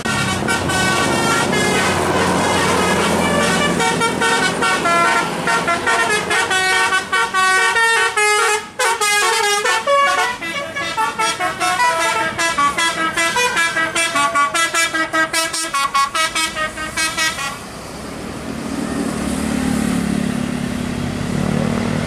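Basuri telolet horn on a tour bus playing a tune of many quick notes that step up and down, turning into short choppy notes, then stopping about 17 seconds in. The bus's engine is heard running after the horn stops.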